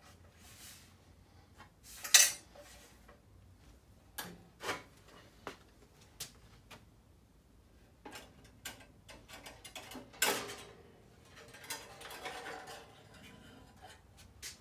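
Metal clinks, clicks and knocks from hand work on a Dewalt 876 bandsaw's blade guides and table during a blade change. There is a sharp metallic clank about two seconds in and another about ten seconds in, followed by a short rattle.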